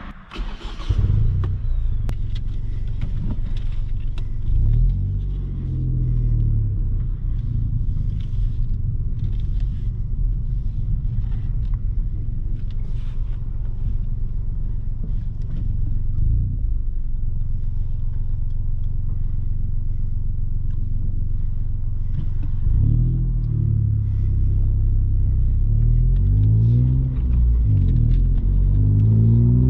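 Ford Fiesta ST's 1.5-litre turbo three-cylinder engine and exhaust under way, a steady low drone. Its pitch rises as it accelerates about five seconds in and several times near the end.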